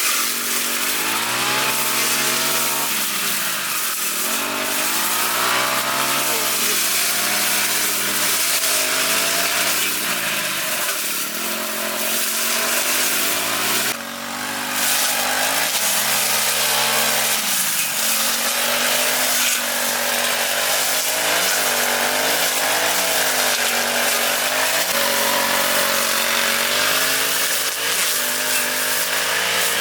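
Lawn mower engine running under load, its pitch rising and falling over and over as it revs up and eases off while cutting grass, with a brief drop about halfway through.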